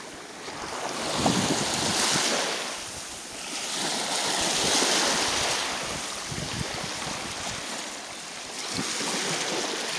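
Small Baltic Sea waves breaking and washing up a sandy shore, the surf swelling and fading in slow surges, with wind buffeting the microphone.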